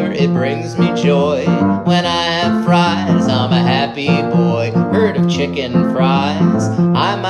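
A country-style song with acoustic guitar and a sung melody.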